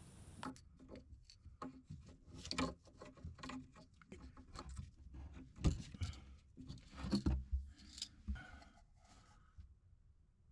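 Teflon thread-seal tape being wrapped by hand around pipe threads: irregular soft rustling and scraping strokes, with a couple of louder knocks about five and a half and seven seconds in.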